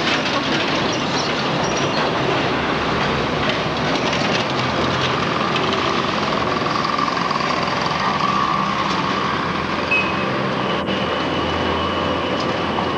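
Street traffic close by: a lorry and a minivan drive past, their engines and tyres making a steady, loud din.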